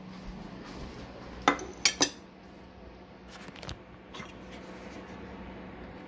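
A ceramic plate being set down on a countertop: three sharp clinks in quick succession about a second and a half in, then a few faint clicks, over a steady low hum.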